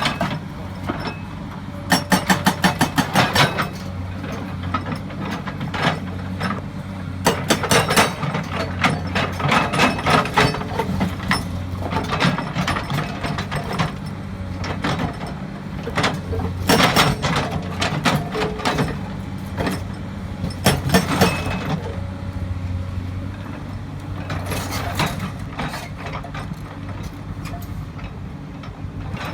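Hydraulic rock breaker hammer on a Komatsu excavator pounding rock in several bursts of rapid blows, over the steady running of the excavator's engine.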